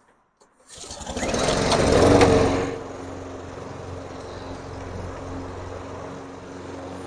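Two petrol walk-behind lawn mowers, a Honda HRG 466 Izy with its Honda GCV145 engine and a Stihl RM 448, start up with a loud surge about a second in, then run steadily while mowing.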